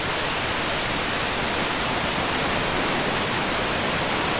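Purling Brook Falls, a steady rush of falling water.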